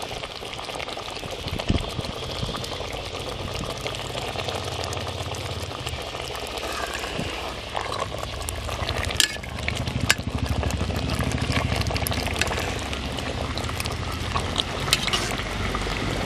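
Sweet potato pieces bubbling as they simmer in a thick liquid in an aluminium pot, stirred with a steel ladle that clinks against the pot a few times.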